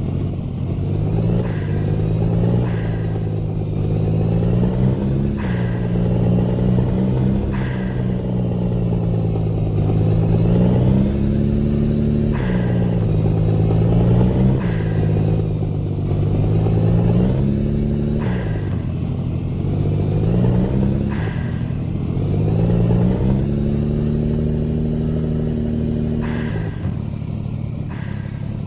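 A vehicle engine revving up and down over and over, its pitch climbing and then falling away sharply about eight times. Sharp clicks come every couple of seconds.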